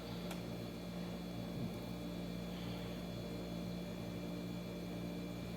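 Steady electrical hum with a faint hiss, from a running appliance motor or fan, holding level with no change.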